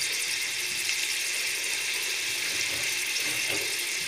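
Chopped red onion frying in oil and a little butter in a metal pot, a steady sizzle.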